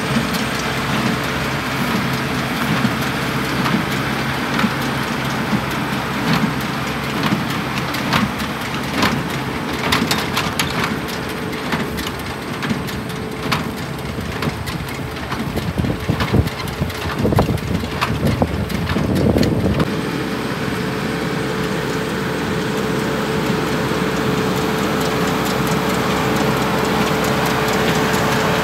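A tractor engine runs steadily under load, pulling a small square baler that knocks and rattles as it picks up and packs hay into bales.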